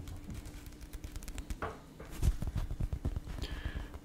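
Fingers tapping and rubbing on a paperback book's cover held close to a microphone: a run of small, irregular taps with a couple of brief scratchy scrapes.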